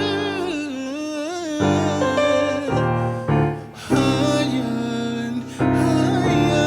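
R&B song: a singer holds and bends long notes with vibrato over keyboard chords and bass.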